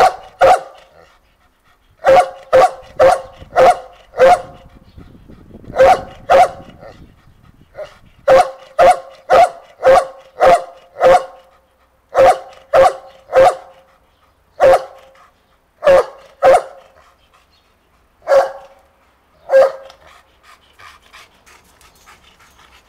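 Dog barking repeatedly in short runs of several sharp barks with pauses between, then single barks spaced out, falling silent about three seconds before the end.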